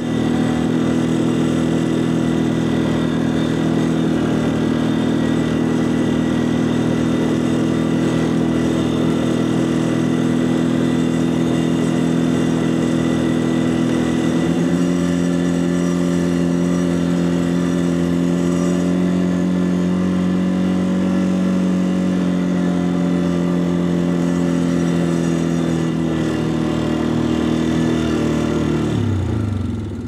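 Quad bike (ATV) engine running at steady revs. Its pitch shifts about halfway through, then drops just before the end as the quad slows.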